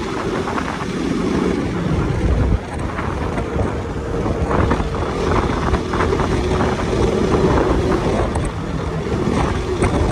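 Heavy wind buffeting the microphone on a moving motorcycle, with the engine running steadily underneath.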